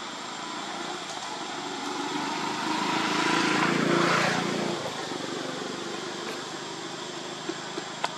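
A motor vehicle engine passing by, swelling to its loudest about three to four seconds in and then fading, over a steady outdoor background. Two short clicks near the end.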